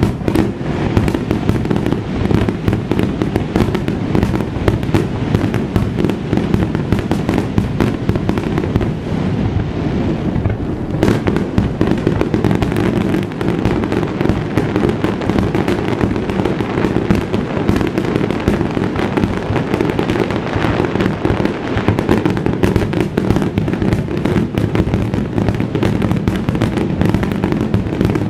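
A fireworks star mine: shells launching and bursting in rapid, continuous succession, one bang running into the next, with no break.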